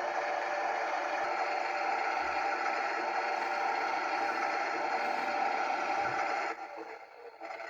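Toy washing machine's small electric motor whirring steadily as the drum turns, dropping away about six and a half seconds in.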